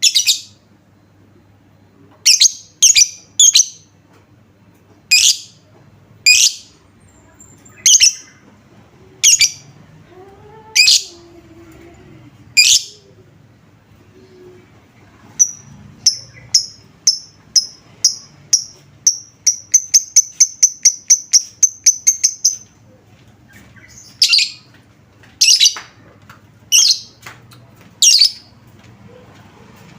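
Lovebird giving loud, sharp, high single shrieks about once a second. About halfway through it breaks into a run of quick short chirps that speeds up, then goes back to single shrieks near the end.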